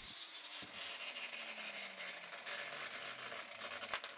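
Angle grinder switched off and coasting to a stop, its whine falling steadily in pitch over about three seconds under a faint hiss. A light click sounds about half a second in and another near the end.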